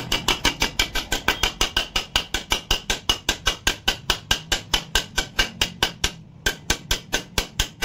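A steel bar tapped rapidly and repeatedly against a part in a motorcycle engine crankcase, about five sharp metallic knocks a second with a short pause about six seconds in, driving the part into its seat.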